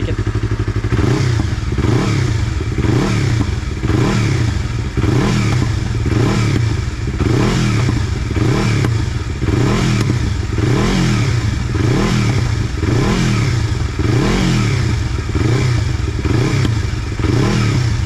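Yamaha MT-25's parallel-twin engine through an Akrapovic GP Slovenia slip-on exhaust, revved from idle in short throttle blips about once a second, the pitch rising and falling with each blip.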